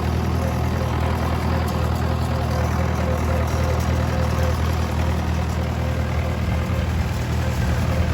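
Farm tractor engine running steadily, a continuous low drone.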